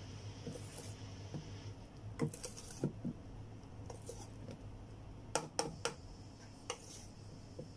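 Wire whisk stirring thick chocolate batter in a stainless steel bowl, with sharp clinks of the wires against the bowl: two around two to three seconds in and a quick run of them around five and a half seconds in.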